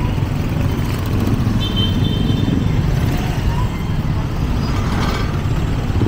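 Busy city street ambience: a steady rumble of motor vehicle engines in traffic, with a brief thin high tone about a second and a half in.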